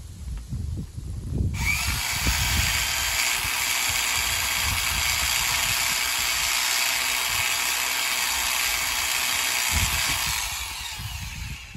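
Handheld percussive rock drill hammering its bit into rock: a loud, dense, steady rattling noise that starts suddenly about a second and a half in and dies away near the end.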